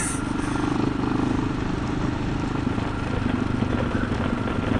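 Adventure motorcycle engine running steadily while riding a dirt road, with wind noise on the helmet.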